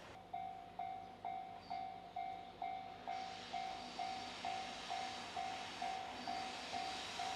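Japanese level-crossing warning bell starting up and ringing its steady two-tone-free "kan-kan" beat, a little over two strikes a second, signalling that a train is approaching.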